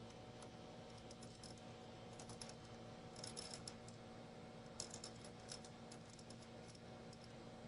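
Faint light metallic clicks and rattles of a hand tap and its tap handle being backed out of a threaded hole, in two short clusters near the middle, over a steady low electrical hum.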